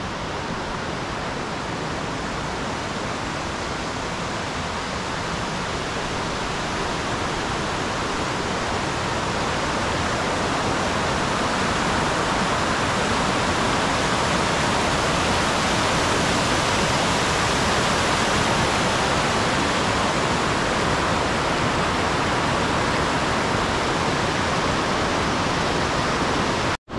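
Water pouring over a concrete weir in a mountain river: a steady rushing that grows gradually louder over the first half and then holds. It cuts out for an instant near the end.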